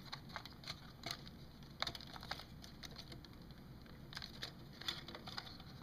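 Faint, irregular clicks and light taps of hands handling the small plastic parts of a clock radio, about a dozen spread over a few seconds.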